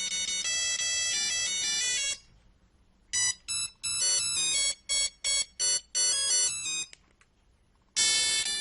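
Nokia 3310 monophonic ringtones played one after another. One melody ends about two seconds in. After a short pause a second tune of short, choppy notes plays for about four seconds, and after another pause a third tune begins near the end.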